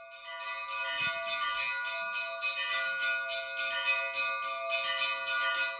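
Church bells ringing in a quick, steady peal of about three or four strokes a second, fading in over the first second.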